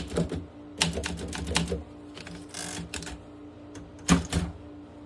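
Olympia SM7 manual typewriter being typed on: typebar strikes clacking in quick runs of several keystrokes, separated by short pauses. There is a brief rustling noise about halfway through.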